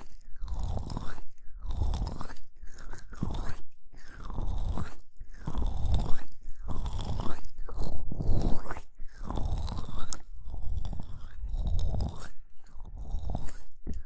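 Hands rubbing and cupping the ears of a binaural microphone, giving close, crackling friction strokes about once a second.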